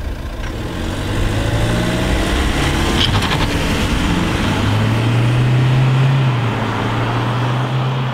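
A car engine running hard and revving, its pitch climbing through the second half and easing slightly near the end, with a brief rattle of clicks about three seconds in.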